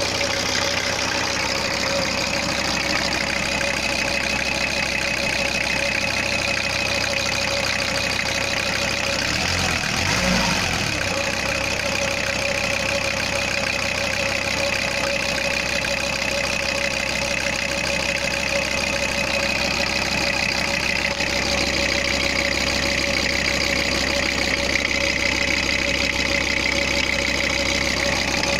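VW T4's 2.4-litre five-cylinder diesel idling steadily on its first run after a cylinder-head rebuild, with a short low pulsing about ten seconds in.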